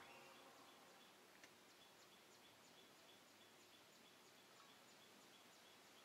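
Near silence outdoors: faint background hiss with short, high chirps repeating about twice a second.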